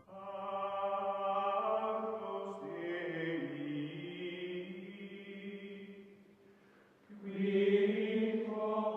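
Background music of slow, chant-like held voice tones, fading away about six seconds in and swelling back about seven seconds in.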